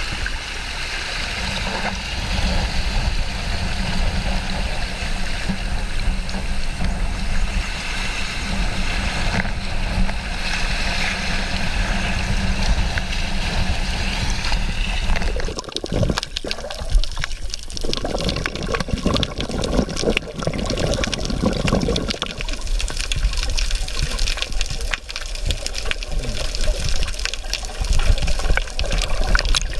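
Seawater rushing and washing over shore rocks in a steady wash. About halfway through it gives way abruptly to the muffled sound of the sea heard underwater, full of fine crackling clicks and bubbling.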